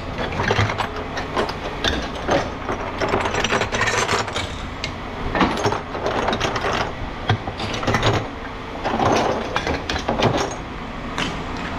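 Irregular metal clanks, knocks and rattles from heavy scrap metal being moved and set down.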